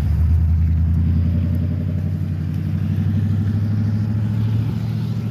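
Pickup truck engine and exhaust running steadily at low revs, a deep even drone with a fast, fine pulse.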